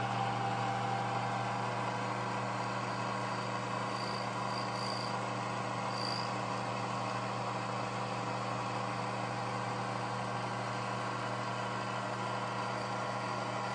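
Metal lathe running steadily, a hum with several even tones and a hiss above it.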